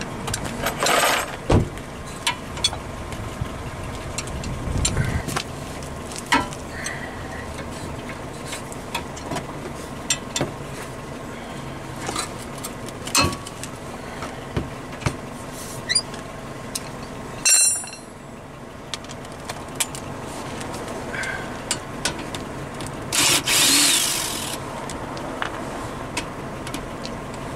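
Hand tools on the front brake's caliper bracket bolts: scattered metal clicks and knocks as the bolts are broken loose with a breaker bar, with a short burst of scraping about a second in and a longer one of about a second and a half near the end.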